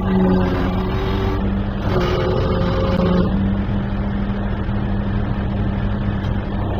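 Mobile crane's engine and hydraulics running steadily while it lifts a concrete retaining-wall block, a low hum throughout. A higher whine rides over it twice in the first three seconds, then drops away, leaving the steady engine hum.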